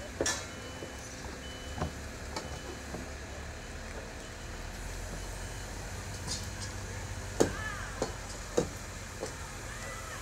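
Heavy machinery on a construction site during a crane lift: a steady low engine rumble, a faint high beep repeating on and off in the first few seconds, and scattered sharp knocks, the loudest three about seven to nine seconds in.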